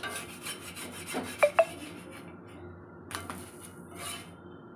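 A metal spatula scraping and tapping on a black iron tawa as a chakuli pitha is worked loose from the pan. There are two sharp clinks about one and a half seconds in, and more scrapes near the end.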